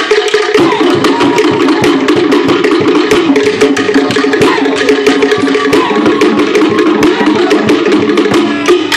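Cook Islands drum ensemble playing a fast, driving rhythm of rapid stick strokes on wooden and skin drums, for dancing.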